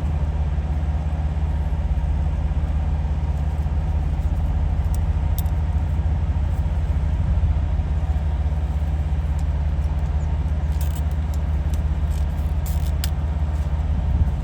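Steady low drone of an idling engine, with a few light clicks near the end as a plastic zip tie is pulled tight.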